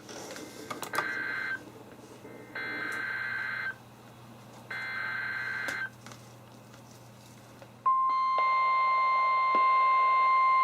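NOAA Weather Radio alert broadcast through a weather radio receiver: three SAME digital header bursts, each about a second of rapid two-tone data warble, then, about eight seconds in, the steady 1050 Hz warning alarm tone begins and holds. The sequence signals the start of a new warning.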